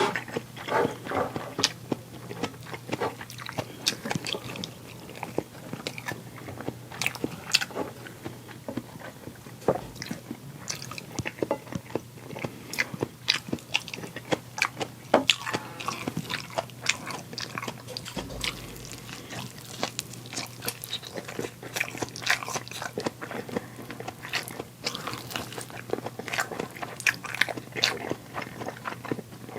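Close-up eating sounds: a person biting and chewing food, with many irregular sharp clicks and smacks of the mouth.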